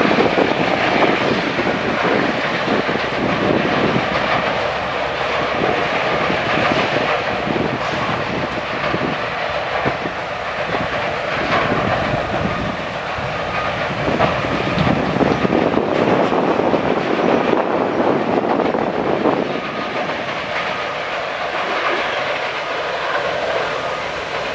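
Sawmill machinery running: a steady, loud mechanical rumble and clatter, with a faint mix of steady whining tones.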